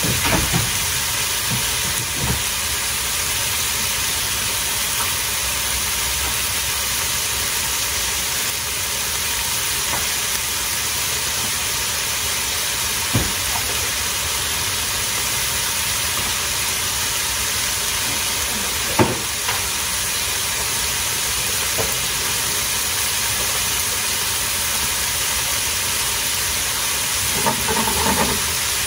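Ground beef patties and sliced onions sizzling steadily in a hot frying pan, with a few brief pops and clicks.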